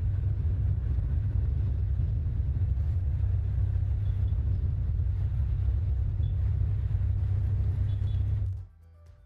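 Heavy wind buffeting on the microphone of a camera moving at riding speed among road cyclists, a steady deep rumble that cuts off suddenly near the end.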